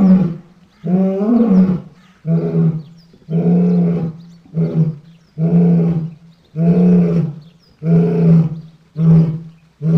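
Roar sound effect made for the extinct sabre-toothed marsupial Thylacosmilus: a string of short, pitched roaring calls, about one a second. The first two rise and fall in pitch; the later ones hold a steady pitch.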